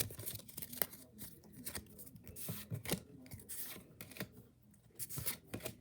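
A foil trading-card booster pack being opened and handled: irregular crinkling, tearing and crackling of the wrapper, with cards rustling.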